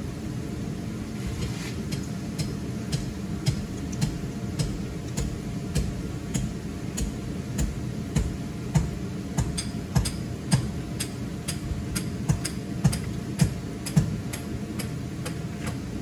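Electric air blower running steadily, keeping a commercial inflatable waterslide inflated, with sharp ticks about twice a second.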